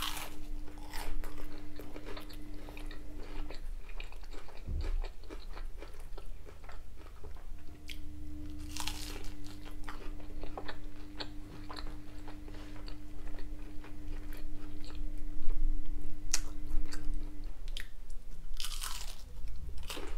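Close-up eating sounds of a person biting into and chewing battered cod bites: crisp batter crunching and mouth sounds, with louder crunches at the start, about halfway through and near the end. A faint steady hum runs underneath.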